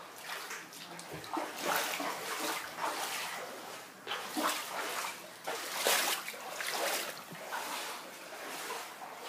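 Floodwater splashing and sloshing in irregular bursts.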